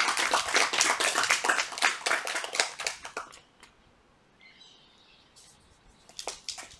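A small audience clapping in a burst that dies away about three seconds in, followed by faint bird chirps.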